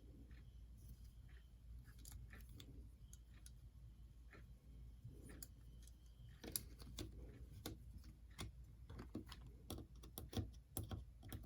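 Faint, scattered light clicks and taps of small plastic model-locomotive parts being handled and fitted together, coming more often in the second half, over a low steady hum.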